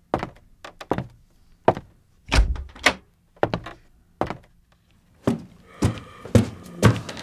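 Live sound effects for a radio drama: a series of knocks, clicks and thunks, like household objects being handled and set down. There is a heavier thump about two and a half seconds in and a brief ringing clink around six seconds.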